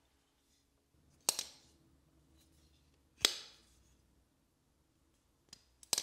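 Bastard Knives Utopia button-lock folding knife, M390 blade in a titanium and carbon-fiber handle, snapping its blade open and shut. There are three sharp metallic clicks, each with a brief ring, about two seconds apart, and the last comes just after two lighter clicks.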